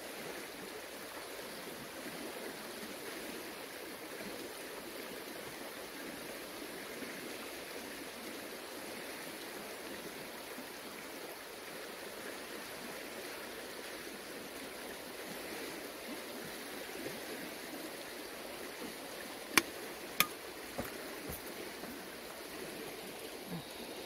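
Steady rushing noise of running water, like a nearby stream, with two sharp knocks about twenty seconds in, followed by a couple of fainter ones.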